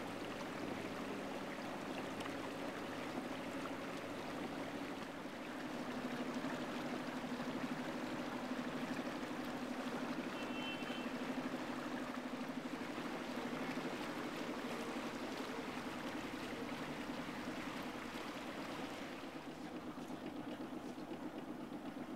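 Sailboat's engine running steadily with a low hum, over the rush of water along the hull. A brief high beep sounds about halfway through.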